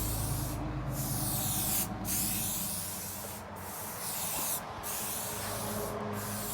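Rust-Oleum 2X aerosol spray-paint can hissing in a series of passes, each broken off by a brief gap about every second, during the second coat on a car hood.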